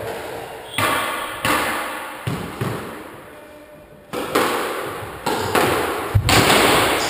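Squash ball in a rally, struck by rackets and hitting the court walls: a series of sharp smacks, about one or two a second, each ringing out in the court's echo, with the heaviest thud near the end.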